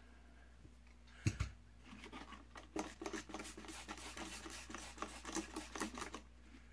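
A single knock about a second in, then a run of quick, scratchy hand-working strokes, several a second, as dirty pliers are being cleaned.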